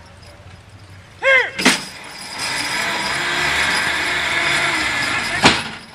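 A short shouted command to the horses about a second in, then a sharp click and about three seconds of steady loud hiss from the Collins dynamometer truck's hydraulic pump, which brakes the truck and holds the load as the draft horse team pulls. The hiss cuts off with a second click near the end.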